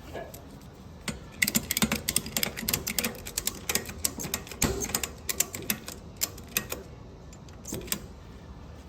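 Ratchet tie-down strap being cranked tight: the ratchet's pawl clicking in a rapid, irregular run of sharp clicks for several seconds, with a couple more near the end.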